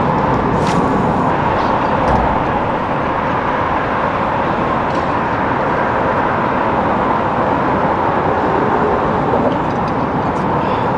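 Steady hum of highway traffic crossing the concrete bridge overhead, the tyre noise running on without a break.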